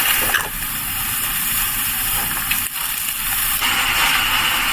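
Heavy rain falling, a steady hiss that grows louder about three and a half seconds in.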